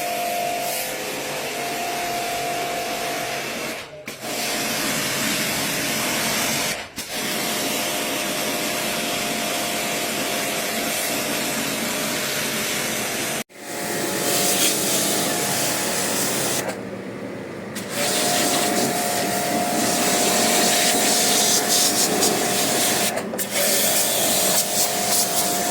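A small motorised machine running steadily with a loud hiss and a constant motor tone, broken off and resumed several times by cuts.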